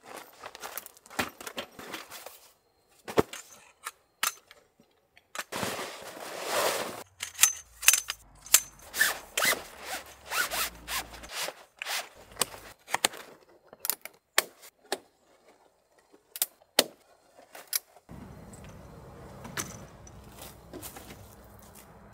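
A folding camp cot being unpacked and assembled on gravel. A zipper and fabric rustling come first, then a run of sharp clicks and knocks as the frame is snapped together.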